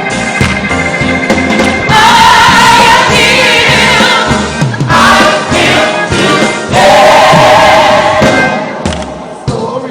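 Choir singing a gospel praise song with instrumental accompaniment, in long held phrases with vibrato. The music softens near the end.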